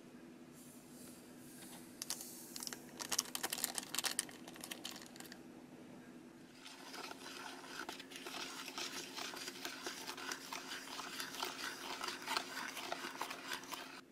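Foil-lined candy-kit powder sachet crinkling as it is handled and emptied. This is followed, after a short pause, by a plastic spoon stirring and scraping powder into liquid in a plastic tray, in quick, continuous strokes as the mixture thickens into a paste.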